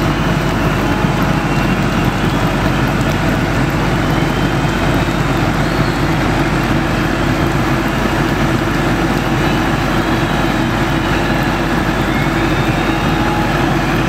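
Cat 304C CR mini excavator's diesel engine running steadily, with faint whines from the hydraulics that rise and fall as the bucket is moved slowly.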